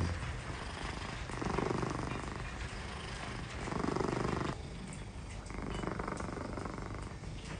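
Elderly cat purring steadily, the purr swelling and easing with each breath about every two seconds.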